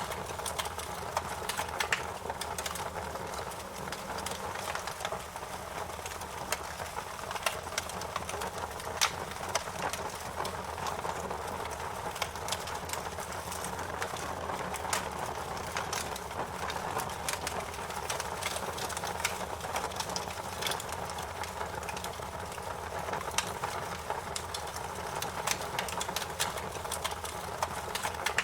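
Campfire burning and crackling: frequent irregular sharp snaps and pops over a steady rushing noise from the flames.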